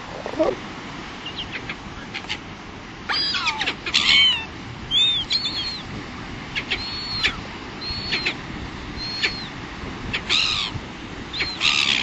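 Gulls calling: a run of short, high, down-arching cries starting about three seconds in, several overlapping around four seconds in, then single cries every second or so, over a steady background hiss of wind and surf.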